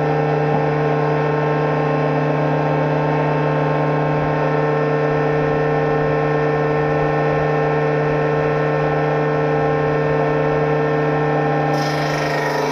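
Electric woodworking machine, a planer or saw, running steadily with no load, a constant droning hum. About a second before the end a harsher rasping noise joins in as wood starts going through the cutter.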